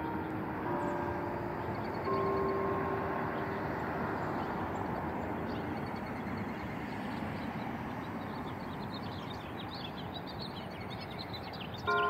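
Church bell tones ringing out in the first few seconds, one struck about two seconds in, then a lull in the bells filled by steady road noise. Birds chirp near the end.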